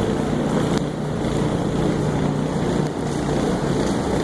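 City street traffic: a steady low rumble of vehicle engines and tyres with a steady engine hum.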